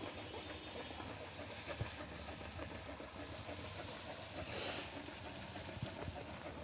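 Puris frying in hot oil: a steady low sizzle with a few small pops.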